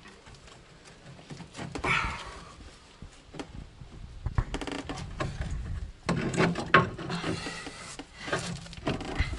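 Metal clicks, knocks and scrapes of tools and suspension parts being handled while a front strut is worked into its steering knuckle, with a short fast run of clicks around the middle and the loudest knocks a little after.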